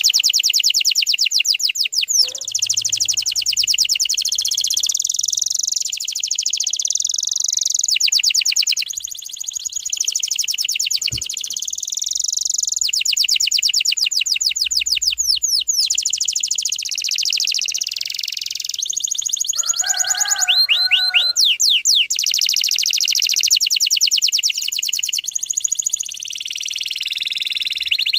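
Domestic canary singing a long unbroken, high-pitched song of fast, tight trills and rolls that switch to a new phrase every second or two, with a short lower warbling phrase about twenty seconds in.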